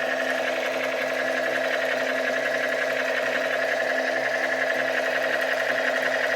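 Small battery-powered toy motor whirring steadily, with a fast fine rattle of gears.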